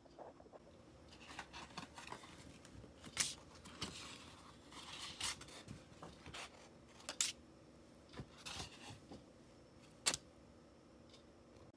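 Scattered short scrapes and sharp clicks of hand work on a small folding knife. The three sharpest clicks come about 3, 7 and 10 seconds in, with a longer scratchy stretch in between.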